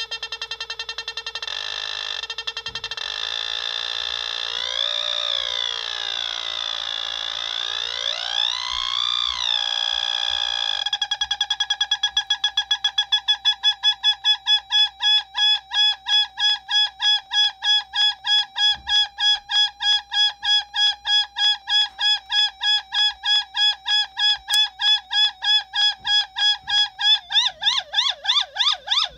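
Noise Toaster analog synthesizer sounding through a small loudspeaker as its knobs are turned. A pitched electronic tone swoops down and back up in pitch a few seconds in. From about eleven seconds it settles into a steady note pulsed rapidly by the repeating envelope, and near the end it takes on a fast, siren-like wobble in pitch.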